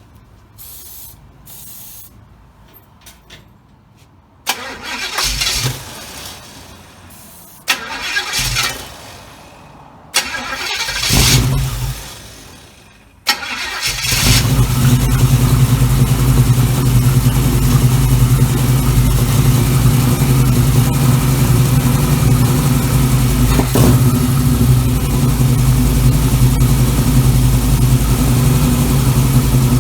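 Small-block Chevy 350 V8 on a freshly rebuilt Holley 1850-2 carburettor, started on starting fluid: three bursts of cranking, then it catches about 13 seconds in and settles into a steady, even idle.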